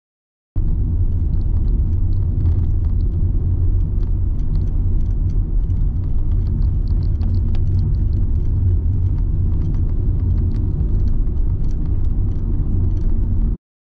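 Car driving, heard from inside the cabin: a steady low rumble of road and engine noise with faint scattered ticks. It cuts in abruptly and cuts off abruptly near the end.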